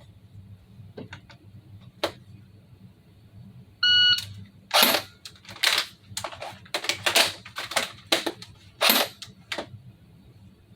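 An electronic shot timer gives one short start beep about four seconds in, followed by a quick run of sharp plastic clicks and clacks from an unloaded, ungassed airsoft FN P90 replica being handled and dry-fired.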